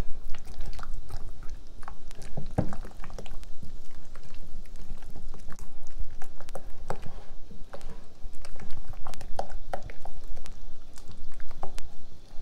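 Silicone spatula stirring soft ricotta cheese and condensed milk in a glass bowl: wet squelching and irregular light clicks as the spatula works through the mixture and against the glass.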